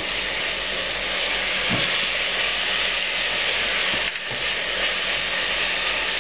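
Sliced onion, ginger and chili sizzling steadily in hot oil in a saucepan, with light scrapes of a wooden spatula stirring them.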